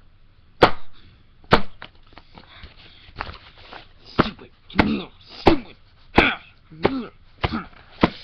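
Hand smacking an empty egg carton on a tabletop: two sharp hits in the first second and a half, then a run of hard smacks from about three seconds in, mixed with short grunting vocal sounds.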